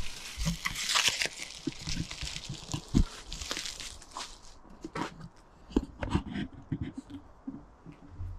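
Cardboard bike box being handled: rustling and scraping of cardboard, dense for the first few seconds, with scattered knocks and a heavier thump about three seconds in.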